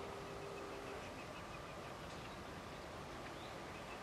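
Birds chirping over steady outdoor background noise, with a steady tone that stops about a second in.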